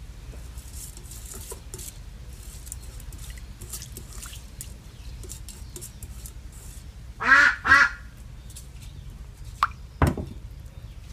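Faint light splashing of a hand stirring rice in sugarcane juice in a metal pot, then, about seven seconds in, two loud duck quacks in quick succession. A short knock follows near the end.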